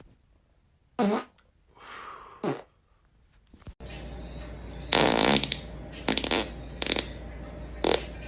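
A run of human farts: three short ones in the first couple of seconds, then, over a steady low hum, a long, loud, fluttering fart about five seconds in, followed by a few shorter ones.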